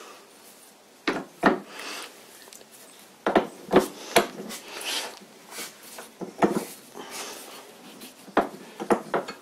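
Tool-rest stem being twisted and forced down into the tool-rest holder (banjo) of a vintage Karger lathe: metal rubbing and scraping, with a dozen or so sharp clicks and knocks at uneven intervals. The fit is tight, which is put down to probable rust in the socket.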